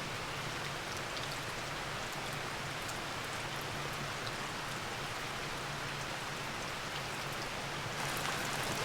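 Steady rain falling, with scattered faint drop ticks and a faint low hum underneath; it grows a little louder near the end.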